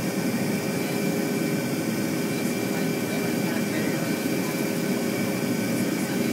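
Boeing 737 jet engines heard from inside the cabin during the climb after takeoff: a steady, even rush of engine and airflow noise with a few steady whining tones on top.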